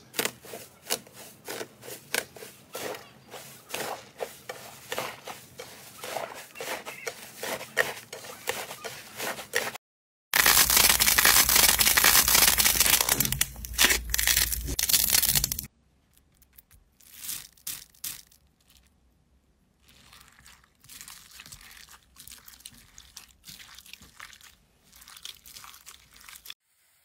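Hands working slime in three clips: gold leaf foil over crunchy slime crinkling under pressing fingers, many quick crackles. About ten seconds in, a loud, even noise lasting about five seconds as a stiff pink slime is pulled apart. Then fainter crackles as foam-bead slime is worked by hand in a basin of water.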